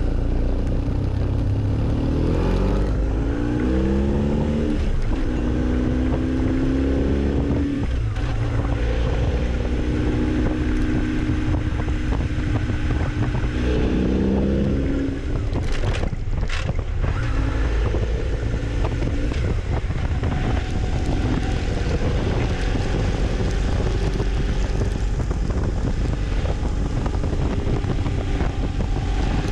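Motorcycle engine accelerating, rising in pitch and dropping back at each gear change, with a short lift off the throttle about halfway through. Wind rushes over the microphone throughout.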